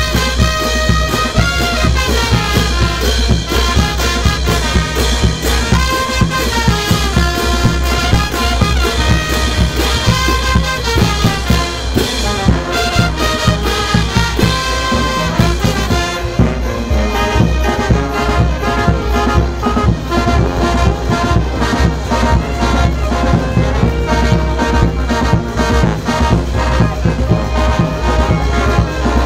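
Brass band playing, with trumpets and trombones carrying a melody over a steady beat.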